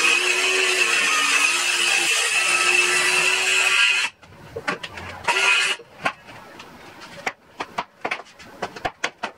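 INGCO cordless circular saw cutting through plywood along a straight edge, a steady whine under load, trimming the jig base's edge flush to the blade. It stops abruptly about four seconds in, followed by scattered knocks and clatter as the plywood offcut is handled.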